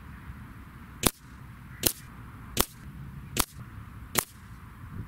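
Five shots from a .177 sub-12 ft/lb PCP air rifle firing lead slugs, each a sharp crack, evenly spaced about a second apart, over a steady background of outdoor wind noise.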